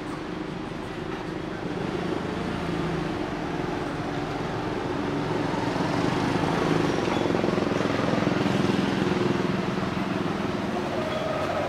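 A motor engine running steadily, growing louder toward the middle and easing off a little near the end.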